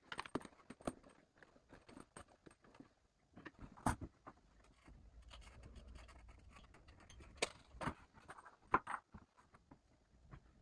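Scattered clicks, taps and scrapes of hand work on a bathroom basin and its plumbing fittings, with a few sharper knocks, the loudest about four seconds in and near the end.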